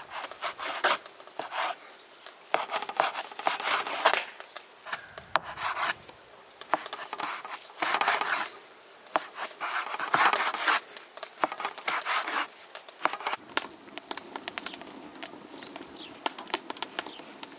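A wavy-edged dough cutter scraping through floured dough onto a wooden board, in repeated short strokes. Near the end, a wood fire crackles with small snaps.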